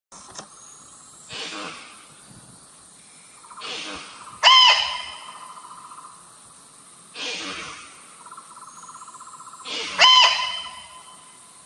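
An animal call, given twice about five and a half seconds apart: each time a couple of breathy rushes lead into a sudden sharp pitched call that fades, over a steady faint background hum.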